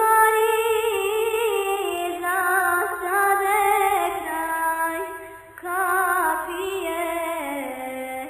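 Music with a singing voice holding long notes with wavering pitch; the phrase breaks off about five and a half seconds in, and again near the end.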